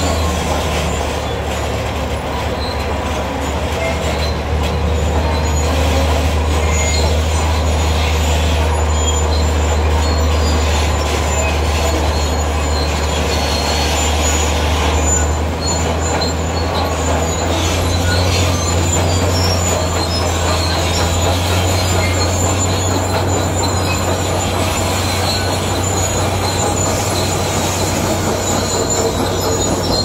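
Zoomlion crawler bulldozer at work: its diesel engine runs steadily with a deep hum while the steel tracks give a continuous high squeal.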